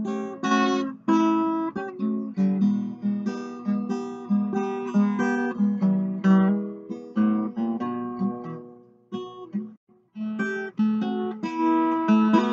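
Background music of plucked and strummed acoustic guitar chords, breaking off briefly about nine and a half seconds in before starting again.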